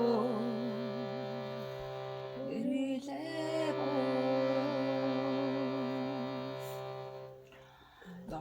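Throat singing: a steady low drone with a wavering melody line above it, sung in long breath-length phrases that break off about two and a half seconds in and again near the end.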